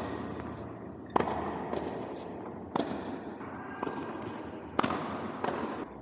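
Tennis ball struck hard with a racket: three loud cracks roughly every one and a half to two seconds, with softer knocks between, each ringing out with echo in a large indoor hall.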